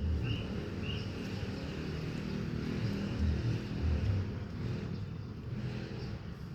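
Steady low engine rumble, with a few short high chirps in the first second.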